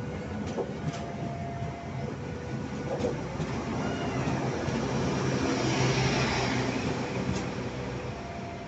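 Stainless-steel passenger coaches of a departing Indonesian train rolling past at low speed, with wheel and rail rumble and a diesel power car's engine hum that swell to their loudest about six seconds in. A two-tone level-crossing alarm alternates in the background.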